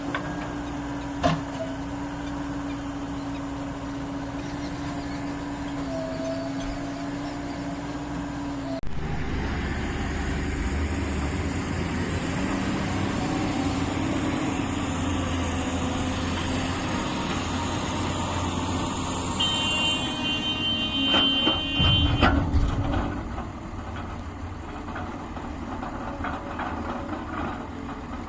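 Diesel machinery running: a steady engine hum that changes abruptly about nine seconds in to a louder, deeper rumble with a high hiss. A short horn toot sounds about twenty seconds in, followed by a burst of loud knocks and clatter.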